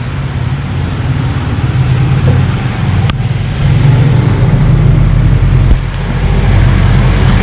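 Steady low mechanical rumble, like an engine running, with a noisy hiss over it; it grows louder about halfway through, with a single click just before.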